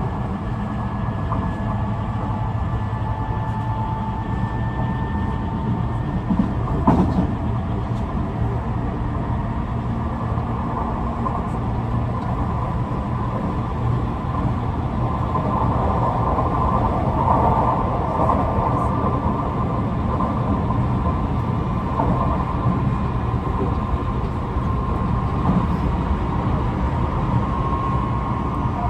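Onboard running sound of a Tobu 50090-series electric train car at speed: a steady rumble of wheels on rail with a faint motor whine of a few steady tones, and a single clunk about seven seconds in. The uploader says this car's motor sounds slightly unusual, perhaps because it is a different type of motor.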